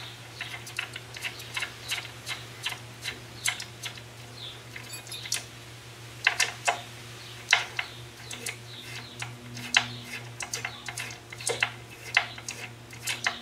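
Irregular light metallic clicks as an 8mm Allen key is worked in the hex socket of a swingarm spool bolt, turning it into the swingarm, over a low steady hum.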